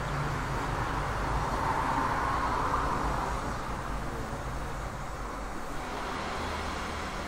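Steady rushing noise of a steam tank engine taking water from a water column, with a low rumble underneath; it swells about two seconds in, then eases.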